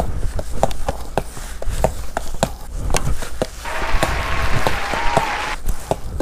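Footsteps on a hard tiled store floor, with sharp taps as a small rubber ball is kicked and rolls and bounces along ahead, several taps a second. About four seconds in, a hiss with a faint wavering tone runs for about two seconds.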